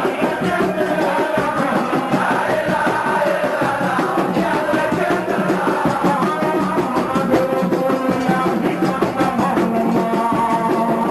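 Senegalese Sufi zikr (sikar) singing: voices chanting a religious song over a steady beat.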